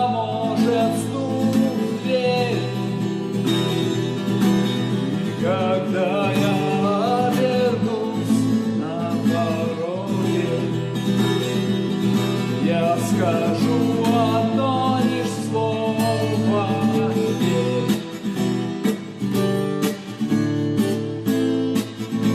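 Acoustic guitar strumming chords in a steady rhythm, with a wavering melody line carried over the top.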